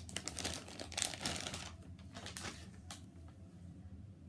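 Thin plastic packaging bag crinkling and rustling as a squishy toy is handled and pulled out of it, busiest for the first two seconds or so, then dying down.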